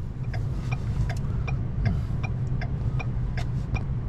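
Car engine and road rumble heard from inside the cabin, with a turn-signal indicator ticking evenly a little over twice a second.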